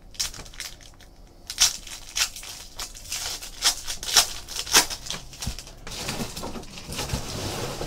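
Foil trading-card packs being torn open and crinkled by hand, a quick run of sharp crackles. Near the end a steady rushing noise starts to build.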